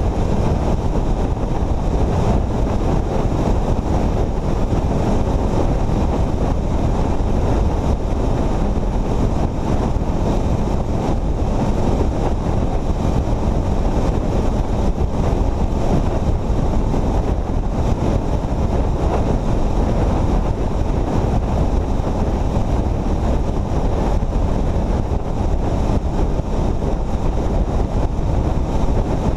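Steady wind rushing over the microphone, mixed with the road and engine noise of a vehicle travelling at highway speed.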